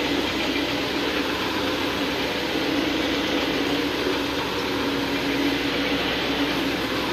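Counter-rotating brush (CRB) carpet-cleaning machine running steadily: a constant motor drone with one steady hum under it, as its brushes scrub the worn carpet fibres.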